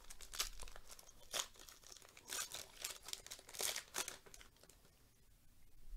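A trading-card pack wrapper being torn open and crinkled by hand, in several short rustling bursts over the first four seconds.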